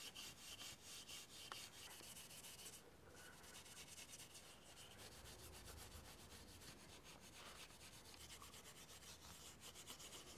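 Faint scratchy rubbing of steel wool buffing the charred black surface of a wooden atlatl, in quick repeated strokes.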